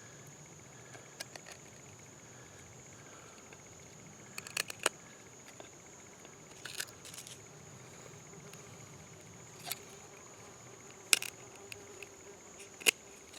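Steady high-pitched chirring of insects, with scattered sharp clicks and taps, a few in quick clusters and the loudest near the end.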